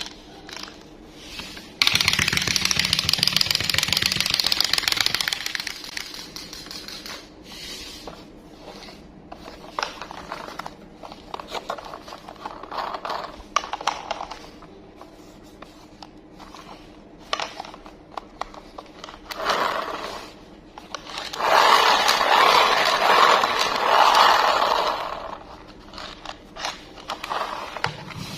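Toy packaging being handled and opened by hand: scattered clicks, taps and light scraping, with two longer, louder stretches of scraping noise, about two seconds in and again past the twenty-second mark.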